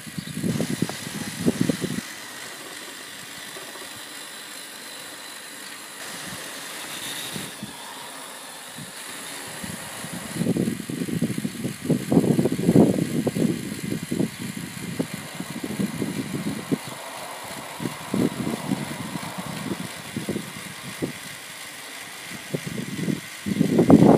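LEGO Technic car's motor and plastic gearbox drivetrain whirring and rattling as it drives over rough concrete. The sound drops to a low steady hum for several seconds, then the irregular rattling returns and is loudest near the end.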